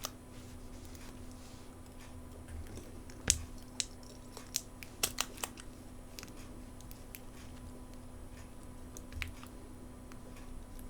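Sparse light clicks and taps of small tools and parts being handled during phone disassembly, a handful of them bunched together in the middle and one more near the end, over a faint steady hum.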